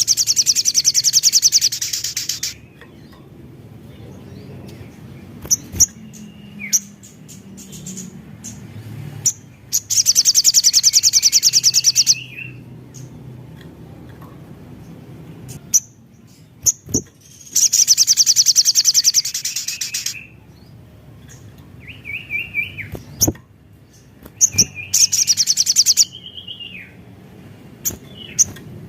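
Sogon (little spiderhunter) singing: four loud, very rapid high-pitched trills, each about two seconds long and several seconds apart, with short sharp chips between them.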